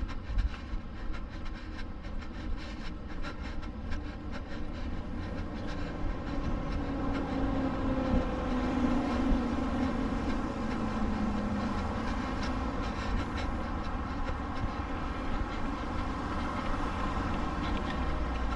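Steady city road-traffic rumble, with one vehicle passing whose engine tone slowly falls in pitch between about seven and twelve seconds in.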